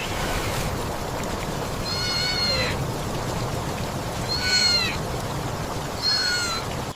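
A cat meowing three times, short calls a couple of seconds apart, over a steady rush of flowing water.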